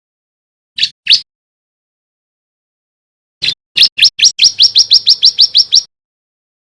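Male bar-winged prinia (ciblek) singing. Two short, sharp chirps come about a second in, then, after a pause, a fast run of about a dozen rising notes at around five a second.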